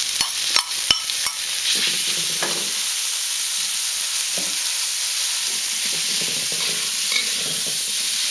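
Sliced beef and onions sizzling steadily in a hot steel wok, stirred and scraped with a metal wok spatula. A few sharp metal clicks come in the first second or so as the meat goes in.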